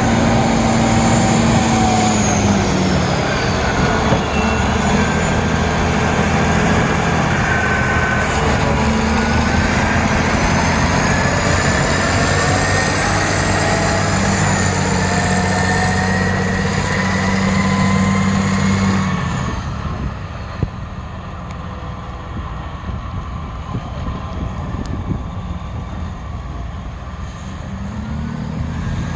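Caterpillar 980B wheel loader's diesel engine working while plowing snow, its pitch rising and falling with the throttle, with a thin whine gliding up and down above it. About two-thirds of the way through it drops back to a quieter idle, then begins to rev up again near the end.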